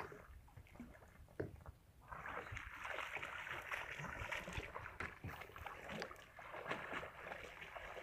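Water splashing and sloshing close by: faint with a few isolated splashes at first, then from about two seconds in a steady, dense run of many small splashes.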